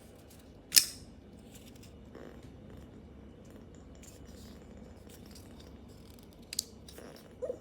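Small folding knife being handled: a sharp metallic click about a second in, then two lighter clicks near the end.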